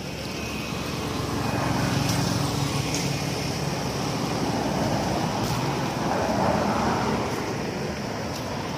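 Motor traffic on a nearby road: a steady rush of engine and tyre noise that swells over the first couple of seconds and then holds.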